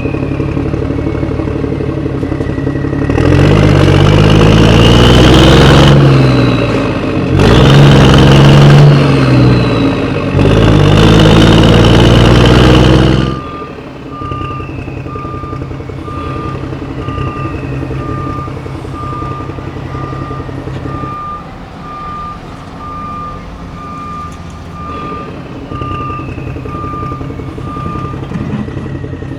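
A heavy vehicle's engine revving up three times, its pitch rising and falling. It then drops back to a lower run while a reversing alarm beeps steadily, about two beeps a second, for around fifteen seconds.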